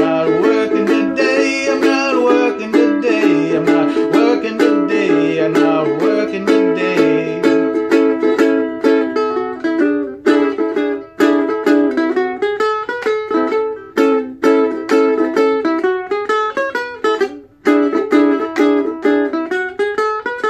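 Acoustic stringed instrument strummed in a steady rhythm through changing chords, with a brief break near the end, playing out a song.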